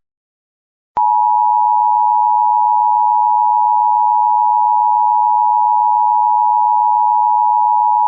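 Emergency Alert System attention signal: the two-tone 853 and 960 Hz alert tone sounding steady and loud, starting about a second in after a moment of silence. It marks the start of an emergency alert broadcast, ahead of the spoken message.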